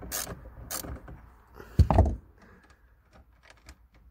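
Hands and a 10 mm socket working a car battery's terminal clamp loose. A few short scrapes in the first second, then one heavy thump about two seconds in.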